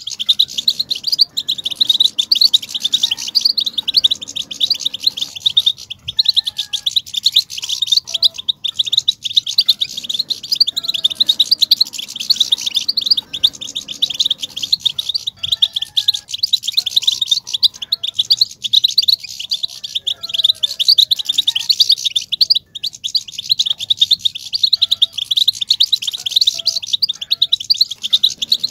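European goldfinch song: a fast, unbroken chattering twitter of quick high chirps and trills, the excited song style called batbata.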